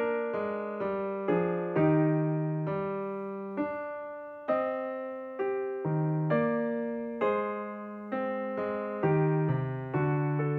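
Background piano music: a slow, gentle melody of struck notes, each fading away before the next.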